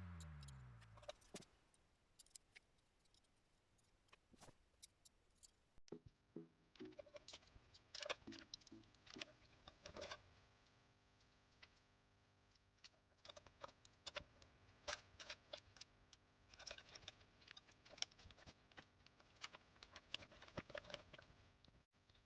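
Faint, scattered clicks and small knocks of a CPU cooler and its mounting bracket being handled and fitted onto the motherboard by hand, coming in short clusters with pauses between.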